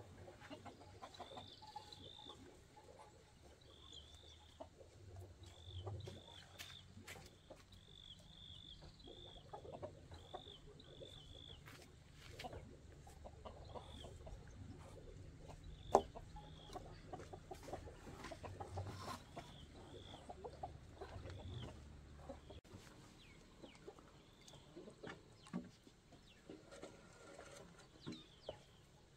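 Chickens clucking and peeping, with short high calls repeated many times through the first two-thirds. Scattered knocks run through it, the loudest a single sharp knock about halfway. A low rumble stops about three-quarters of the way through.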